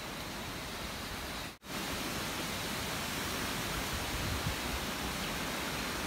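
Steady hiss of rain and wind during a tropical storm, with an uneven low rumble of wind on the microphone. The sound cuts out for an instant about a second and a half in.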